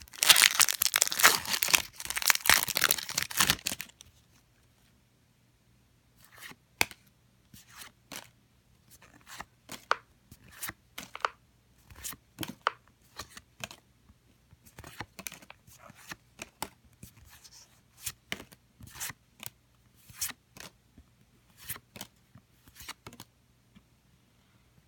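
A foil booster pack wrapper torn open, with loud crinkling and tearing for the first four seconds or so. After a short pause comes a long run of short, soft flicks and snaps as the trading cards are handled one after another.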